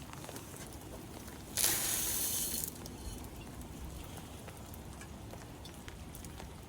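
Rain falling and dripping: a steady patter of drops with scattered small ticks, and a louder rush of hiss for about a second, beginning about one and a half seconds in.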